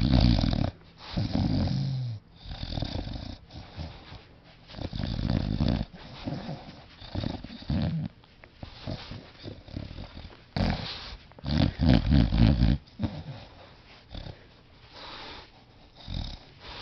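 Bulldog snoring in its sleep: rattling snores every second or two, uneven in strength, with a run of quicker, louder snores about twelve seconds in.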